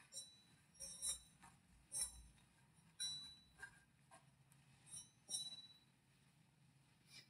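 Communion vessels, the chalice among them, clinking lightly as they are handled and purified at the altar after communion: about eight faint chinks, irregular and roughly a second apart.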